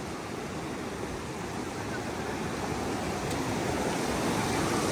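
Rushing snowmelt stream at a road water crossing: a steady rush of water that grows slightly louder.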